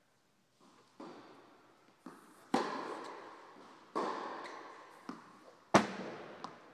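A tennis rally: a string of sharp tennis ball hits and bounces, each followed by a long echo in a large indoor court hall. The loudest pop comes near the end, when the near player strikes the ball with his racket.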